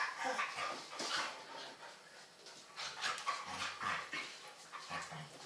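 Two dogs play-fighting on a dog bed: scuffling and panting, with a couple of short low growls in the second half.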